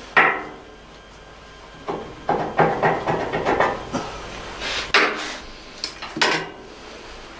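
Metal parts of a bandsaw's length stop clanking and rattling as it is loosened and pulled off the machine: one knock right at the start, a run of rattling knocks through the middle, then a few sharp separate clinks.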